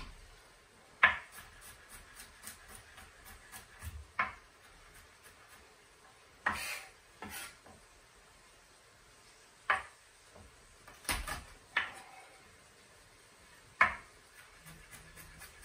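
Chef's knife chopping garlic on a plastic cutting board: irregular sharp knocks of the blade on the board, about eight louder ones among many light taps.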